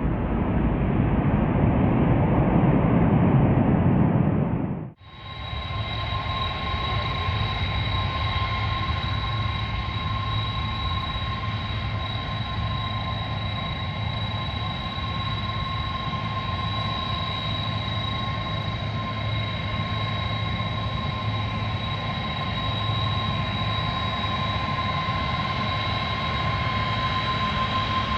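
Boeing 747-200F jet engines. A low rumble for the first few seconds cuts off abruptly about five seconds in, then gives way to steady engine running with a high whine over a low hum.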